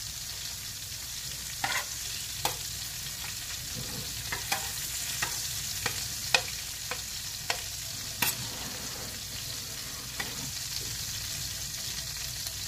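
Butter and a little oil frying with a steady sizzle in a stainless steel pan, stirred with a metal spoon that gives scattered sharp clicks against the pan.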